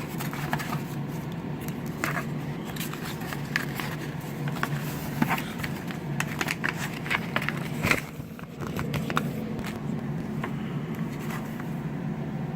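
Paper rustling and crackling as a folded instruction leaflet is opened and handled, in a run of short, sharp crinkles that is busiest in the middle. A steady low hum sits underneath.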